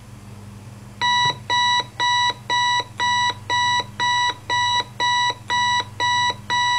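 Sony clock radio alarm going off: a high electronic beep repeating steadily about twice a second, starting about a second in.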